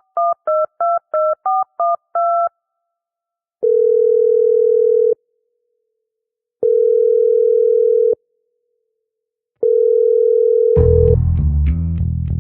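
A quick run of about eight two-tone telephone keypad tones, then three long, steady phone beeps about three seconds apart. Near the end a bass-heavy beat with plucked notes kicks in.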